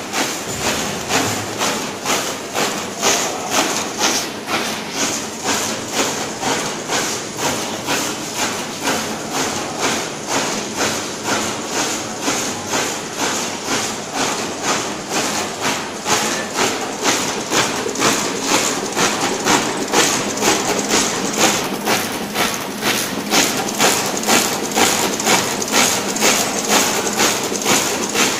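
Automatic label printing machine running, its mechanism clacking in a steady rhythm of about two strokes a second. The clacking grows a little louder past the middle.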